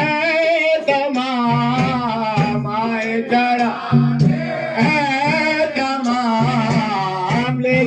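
Men's voices singing a devotional salam, an Islamic salutation hymn, with a wavering, ornamented melody over long held low notes.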